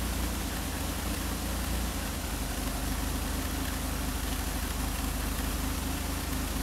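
Maserati 222 4v's twin-turbo V6 idling steadily through its restored exhaust system, with an even low pulsing.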